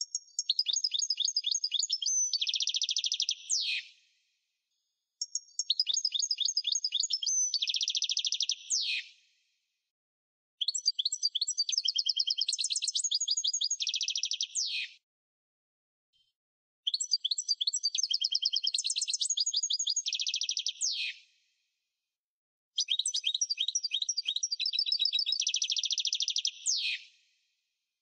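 A songbird singing five similar phrases of about four seconds each, with short silences between them. Each phrase is a run of rapid high trills that turns into a denser buzzy stretch and ends in a quick downward sweep.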